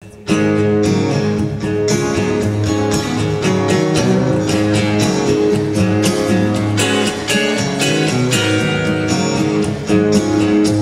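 Instrumental intro of a live song played on acoustic and electric guitars, with chords strummed in a steady rhythm. It starts suddenly about a quarter second in.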